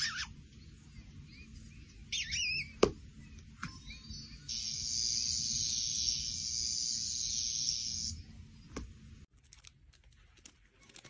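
Sound effects from a cat game on a tablet: high chirping squeaks and a sharp tick, then a steady high hiss for about three and a half seconds. The sound drops away about nine seconds in, leaving faint ticks.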